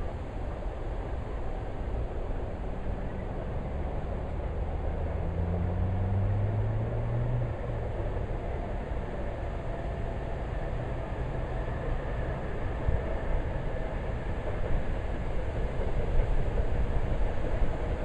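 Wind rumbling and buffeting on the microphone, with a distant engine drone under it that rises slightly in pitch about four to eight seconds in.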